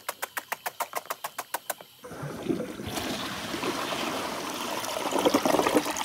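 A rapid run of about fifteen even clicks over the first two seconds, then a toilet flushing, water rushing into the bowl.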